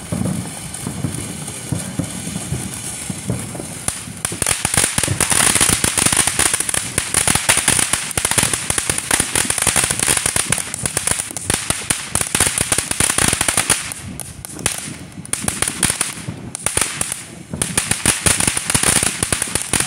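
Ground fountain firework spraying sparks with a hiss, breaking about four seconds in into dense, rapid crackling that thins out briefly twice near the end.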